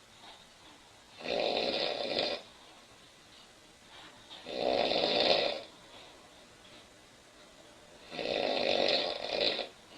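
A woman snoring loudly in her sleep: three long snores, one every three to four seconds, with quiet breathing between them.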